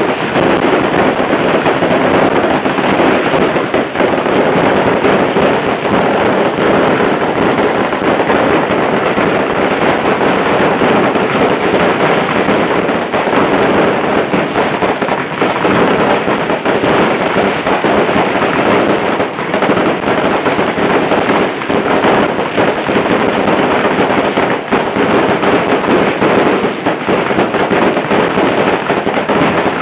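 Fire lion firework display: fireworks and firecrackers going off in a dense, unbroken crackle of rapid small bangs, loud and without a pause.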